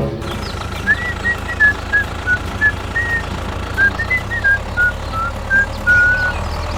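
A simple high-pitched tune of about twenty short notes stepping up and down in pitch, over a steady low rumble.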